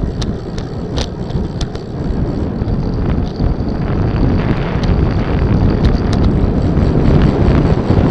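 Wind buffeting the microphone of a moving rider's camera: a heavy, low rumble that grows louder, with a few sharp ticks.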